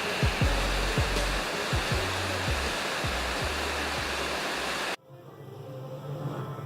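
Heavy rain and hail pouring down in a dense, steady hiss, with low sliding music notes underneath. The storm sound cuts off suddenly about five seconds in, leaving quieter music.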